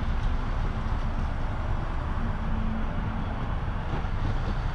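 Silver sedan rolling slowly into a parking space, giving a steady low rumble.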